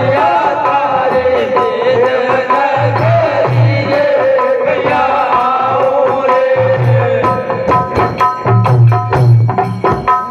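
Rajasthani Holi dhamal folk music: a sung melody over regular chang frame-drum beats. About seven seconds in, the singing gives way to sharp, evenly spaced drum strokes.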